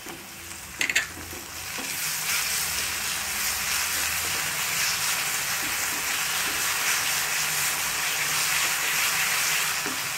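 Chopped onions and chili-tomato sauce sizzling in a hot nonstick kadai while a wooden spatula stirs them. A few short clicks about a second in, then the sizzle grows louder about two seconds in and stays steady.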